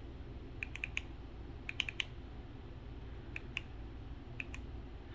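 Buttons of a Sengled wireless smart light switch clicking as they are pressed, in quick pairs and threes (double clicks) several times over.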